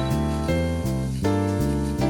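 Background music: keyboard or piano chords over a bass line and a steady beat.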